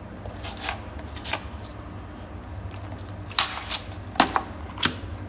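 A Zippo lighter being worked by hand: a string of sharp metallic clicks and snaps from the lid and flint wheel as the flint is freed up, the loudest about three and a half to five seconds in.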